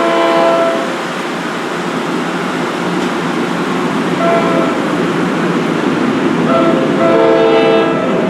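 Locomotive air horn sounding a chord in four blasts, long, short, short and long, over the continuous rumble of a train running on the tracks.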